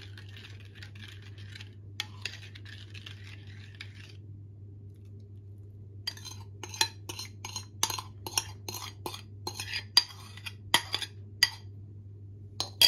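Metal spoon scraping a wet egg mixture out of a ceramic bowl into a stainless steel pot of flour: soft scraping for the first few seconds, then after a short pause a run of sharp clinks, about two a second, as the spoon knocks against the bowl.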